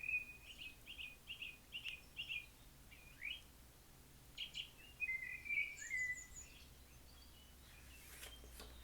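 Faint birdsong: a quick run of short chirps in the first two seconds, a downward-sliding call about three seconds in, and more chirps and a short trill around five to six seconds, then it fades away.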